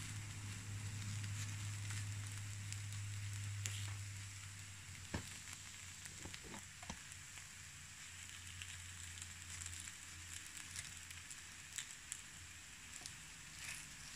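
Takoyaki balls sizzling faintly in the wells of an electric takoyaki plate, a steady hiss with a low hum that fades after about four seconds. A few light clicks come around the middle.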